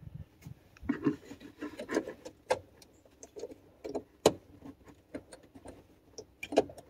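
Irregular plastic clicks, taps and rubbing as a replacement relay is pushed and worked at in a car's fuse and relay box socket. The relay will not seat because its housing is different from the original's.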